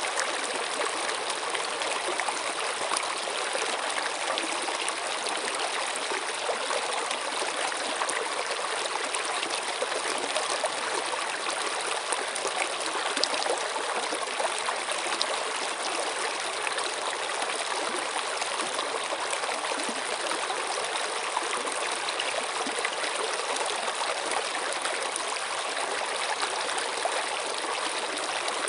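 Running water flowing steadily: an even, unbroken rush with no pauses or distinct splashes.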